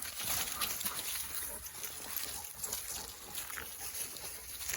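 A dog panting and snuffling close by, soft and uneven, with no barking.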